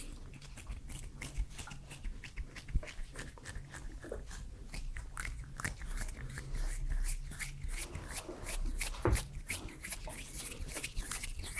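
Close-miked ASMR mouth sounds: quick, irregular wet clicks and smacks, several a second.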